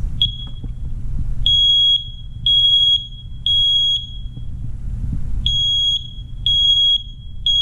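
Ceiling smoke alarm sounding its test, battery-powered on fresh AA batteries: a short chirp, then two groups of three loud, high-pitched beeps, each about half a second long, in the standard temporal-three alarm pattern. It shows the alarm is working.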